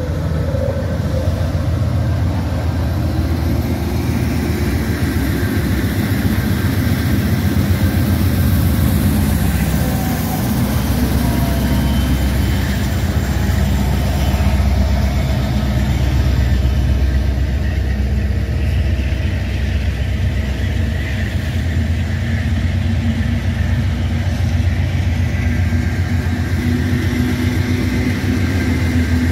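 A string of diesel-electric freight locomotives passing close under power: a loud, steady low engine rumble with the rolling sound of wheels on rail.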